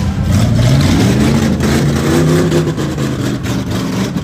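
Demolition derby car's V8 engine revving loudly, the pitch climbing and falling as it accelerates, with a rough crackle over it.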